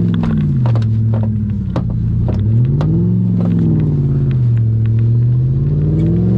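Snowmobile's two-stroke engine running under way, its revs sagging and climbing again twice as the throttle is eased and reapplied, with scattered sharp clicks over it.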